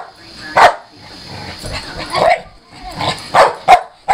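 Pit bull barking at a cat in a run of short, sharp barks about a second apart, the last two coming close together.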